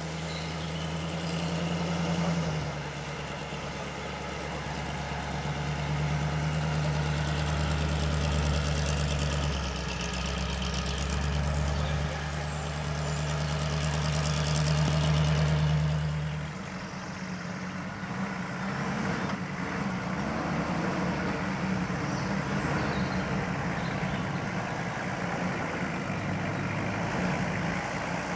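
4x4 engine running steadily at low revs as a Jeep CJ crawls over steep, rough ground. Partway through, the steady engine note breaks off and a rougher, less even engine sound from another off-roader takes over.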